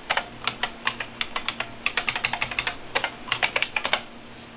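Rapid typing on the IBM RS/6000 workstation's computer keyboard, a quick run of keystrokes that stops about four seconds in.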